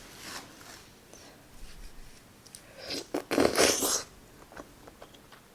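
Crunchy bite into a fried potato-coated Korean corn dog: a short burst of crackling crunch about three seconds in, with faint chewing clicks around it.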